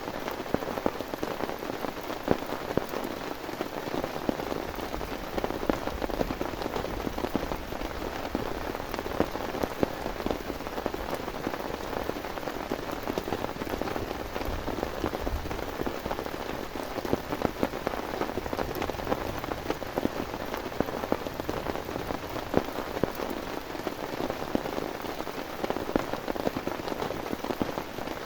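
Heavy rain falling steadily: a dense, even patter with many sharper individual drop hits throughout.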